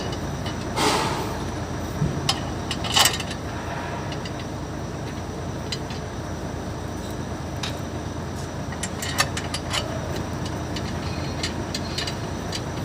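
Steady low rumble of traffic with scattered sharp metallic clinks and taps from hand tools and clutch parts, the strongest about a second in and about three seconds in.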